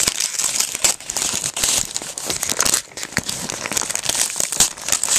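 Plastic packaging bag crinkling and rustling as it is handled and opened, in irregular bursts of crackle.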